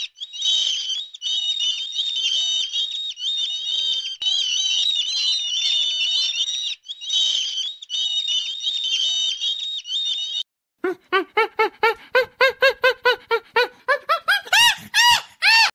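A flock of seabirds calling: a dense, high-pitched chatter of overlapping cries with a few short breaks. About ten and a half seconds in it cuts off, and a different animal starts calling in rapid, repeated pitched calls, about five a second, climbing higher in pitch near the end.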